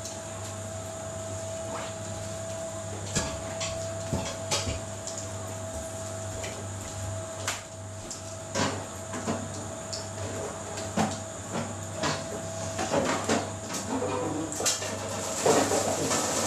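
Newborn smooth fox terrier puppies nursing and shuffling against their mother: scattered small clicks and rustles, with a run of short squeaks in the last few seconds, over a steady electrical hum.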